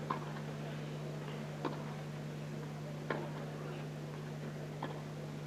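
Tennis ball struck by rackets in a rally: four sharp strikes about a second and a half apart, over a steady low hum.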